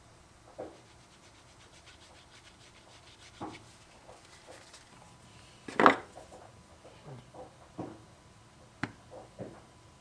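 Hands working small pieces of leather and a wooden-handled tool on a cutting mat: scattered soft taps and rubs, with one much louder knock about six seconds in.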